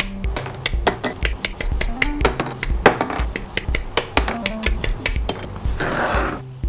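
Dense, irregular sharp clicks and clacks of plastic model kit parts being handled and snapped together, over background music with a steady bass beat. A short hissing scrape comes near the end.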